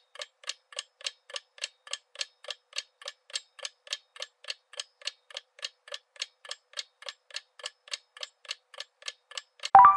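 Ticking-clock sound effect for a quiz countdown timer, even ticks at about three and a half a second, ending just before the close in a short chime that marks time up.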